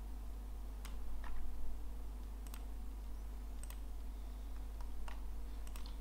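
Scattered clicks of a computer mouse and keyboard, about eight spread unevenly over the few seconds, over a steady low hum.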